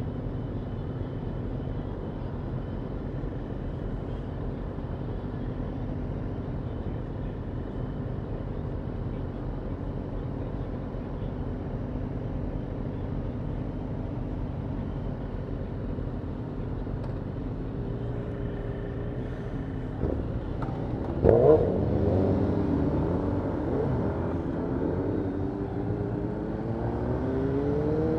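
Motorcycle engines idling together at a standstill. About 20 seconds in, one is sharply revved. The engines then pull away, rising in pitch as they accelerate, and climb again near the end.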